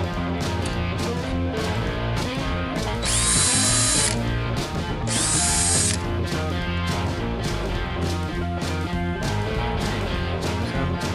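Background guitar music with a steady beat throughout. About three seconds in, a power drill runs in two short bursts of about a second each: drilling into the sailboat's hull by the keel to check for and drain trapped water.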